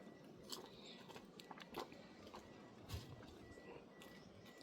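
Near silence with a few faint scattered clicks and crackles.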